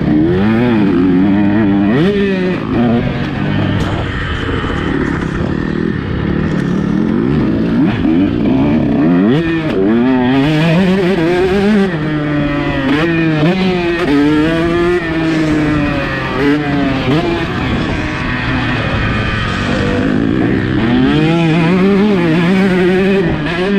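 Two-stroke motocross bike engine revving hard and repeatedly. Its pitch climbs, drops sharply and climbs again as the rider works the throttle and gears around the track.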